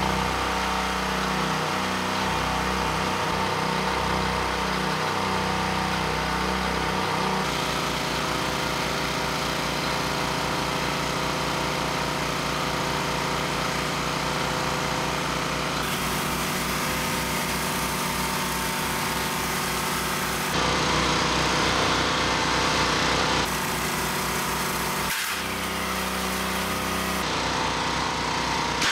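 Small Predator single-cylinder gas engines running steadily with no oil in the crankcase, during a run-to-failure test. The engine note shifts abruptly several times.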